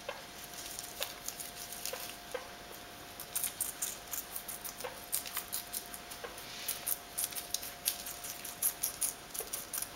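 Guinea pigs on a hard floor: a run of light, quick clicks and taps, sparse at first and thick from about three seconds in, over a faint steady hum.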